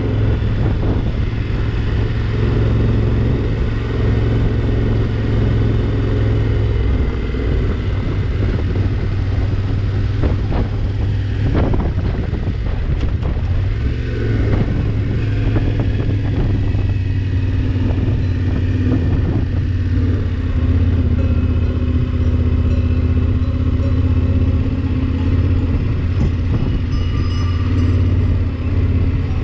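Yamaha Ténéré 700's parallel-twin engine running as the motorcycle rides along, heard from a camera mounted on the bike. The engine note drops after several seconds as the bike slows, then holds a steady low note through the last third.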